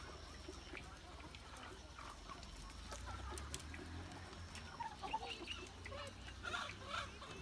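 A flock of chickens clucking and chirping, many short overlapping calls, with a steady low hum underneath.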